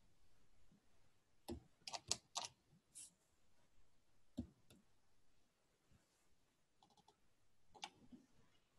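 Faint clicks of a computer mouse and keyboard: a quick cluster of clicks a second and a half to three seconds in, a couple more around four and a half seconds, and one near the end.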